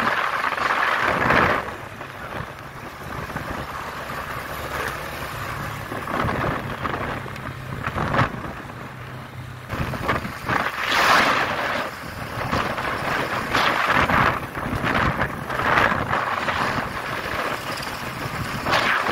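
Motorcycle engine running at road speed, a steady low hum, with wind buffeting the microphone in irregular gusts.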